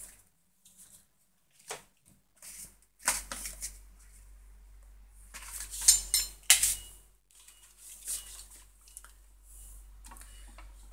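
Handling noise from a camera being carried and moved about: scattered rustles, brushes and light knocks, with a faint low hum underneath.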